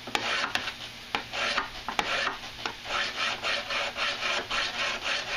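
Hand file being draw-filed across a steel knife blade: quick rasping strokes, about three a second, the teeth biting off metal fast, with a few sharp clicks in the first two seconds.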